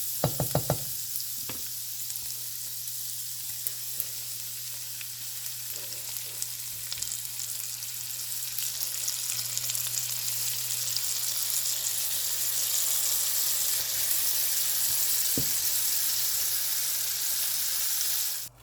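Garlic butter sizzling and frying in a pan: a steady hiss that grows a little louder through the second half, over a low steady hum, with a few short clicks near the start. It cuts off suddenly at the end.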